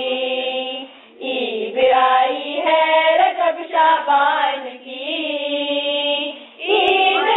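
Girls' voices singing a devotional song in long, drawn-out notes, in several phrases broken by short pauses.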